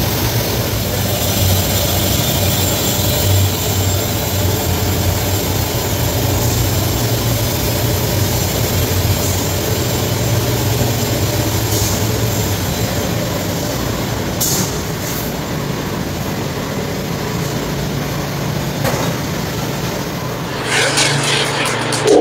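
Coffee processing machinery running steadily with a low hum: a coffee huller being fed, then a drum coffee roaster. About twenty seconds in, a dense rattling rush as roasted beans pour out of the roaster drum into its cooling tray.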